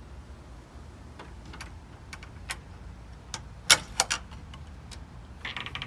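Scattered light clicks and knocks, with a quick cluster of sharp, louder clicks about four seconds in, over a low steady rumble.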